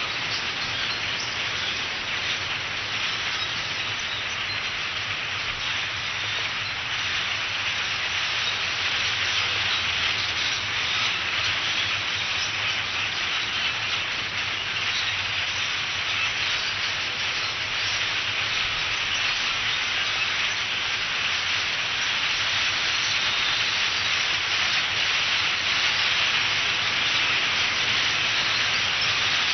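Massed chatter of a large flock of common starlings, a dense hissing, crackling din of many overlapping calls that grows louder in the second half.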